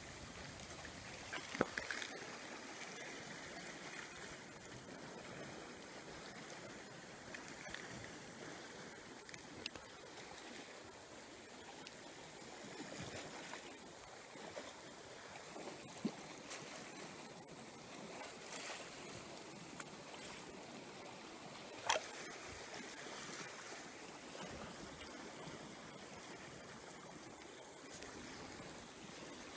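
Steady soft wash of sea water and wind along the shore, broken by a few short sharp clicks, the loudest about twenty seconds in.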